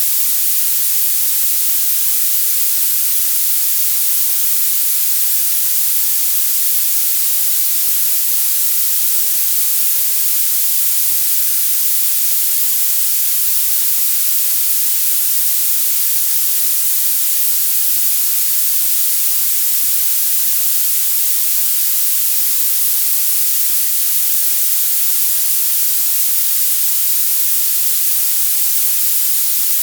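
Violet noise: a steady, loud, very high-pitched hiss with its energy rising toward the top of the hearing range and almost no low end.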